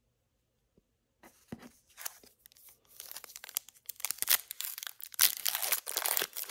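A 2023 Topps Chrome hobby pack's foil wrapper being torn open and crinkled, beginning about a second in and getting louder toward the end.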